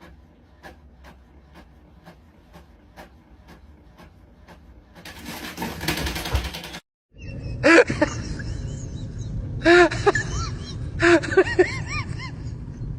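Even ticking about three times a second, then a loud burst of hiss-like noise. After a short break, several short animal calls that rise and fall in pitch, mixed with bursts of noise.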